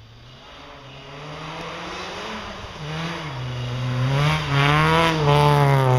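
Rally car approaching at speed on a snow stage, its engine revving hard and shifting quickly up and down through short gears. It grows steadily louder and is loudest near the end as it comes close.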